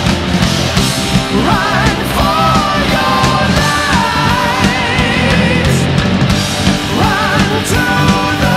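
Loud heavy rock music with a wavering melody line over a dense, steady backing.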